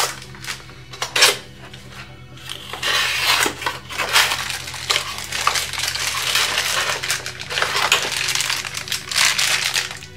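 Clear LDPE plastic bag crinkling and rustling as the power cable inside it is pulled out and handled, with a couple of sharp knocks of box handling in the first second or so. Background music plays underneath.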